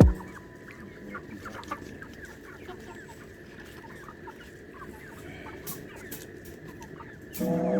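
A flock of meat chickens clucking and peeping, many short calls overlapping. Background music comes in near the end.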